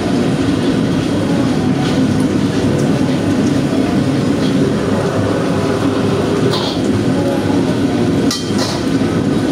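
Commercial wok burner and kitchen exhaust hood running with a steady, loud low rush. A few metallic clinks of ladle and strainer against the wok come through, the clearest near the end.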